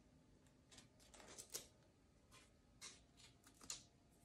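Faint, scattered light clicks and rustles of small paint bottles being picked up and moved about during a search through them.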